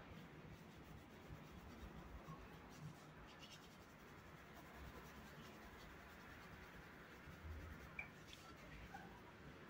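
Faint scratching of pencils on paper during drawing, over quiet room tone.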